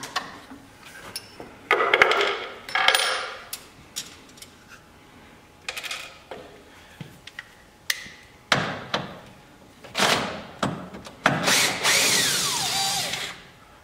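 Cordless drill fitted with a socket backing a bolt out of an aluminium lift-strut fitting, in three short runs in the second half. The last and longest run falls in pitch as the drill slows. Before that, clicks and rattles of metal hardware and tools being handled.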